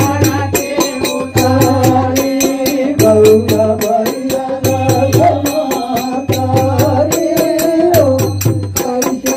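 Devotional aarti singing with a fast, steady beat of jingling percussion and a drum underneath.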